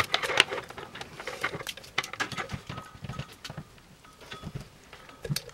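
Thin metal foil and plastic separator film crinkling and crackling as fingers peel apart the layers of a lithium-ion pouch battery cell, in irregular small crackles.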